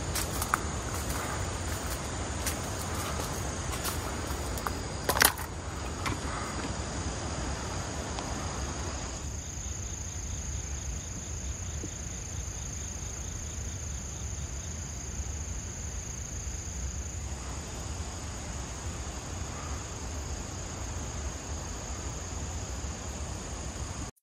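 Insects singing in a steady, high-pitched drone over a low rumble, with one sharp click about five seconds in.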